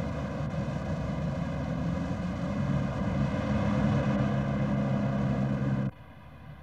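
Street traffic noise with a motor vehicle engine running, swelling a little through the middle and cutting off abruptly near the end.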